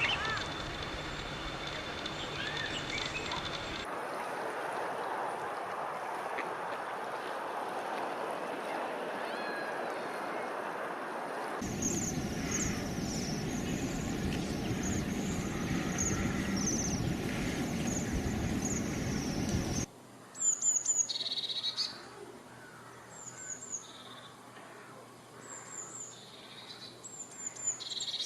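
Small songbirds chirping and singing in a series of separate recordings that change abruptly several times: the earlier ones have high chirps over a steady background hiss, with a fast run of repeated high chirps in the middle, and the last is quieter with clear, separate high-pitched chirps and short trills.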